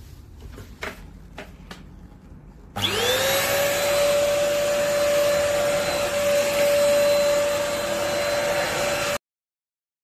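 A few light clicks and knocks, then about three seconds in the Eluxgo EC25 stick vacuum cleaner is switched on: its motor whine rises quickly to a steady pitch and it runs steadily with loud suction noise. The sound cuts off suddenly near the end.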